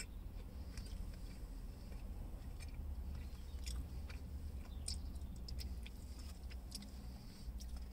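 A person chewing a mouthful of grilled chicken wrap, with scattered faint wet mouth clicks over a low steady hum. The chicken being chewed is tough and overcooked.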